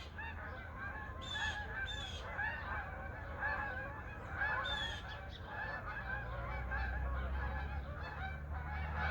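A flock of Canada geese honking, many calls overlapping in a steady chorus. A low hum comes in about six seconds in.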